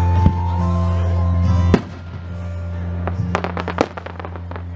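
Fireworks going off over steady music from loudspeakers: a sharp shell burst about a second and a half in, then a quick run of crackling pops about three seconds in.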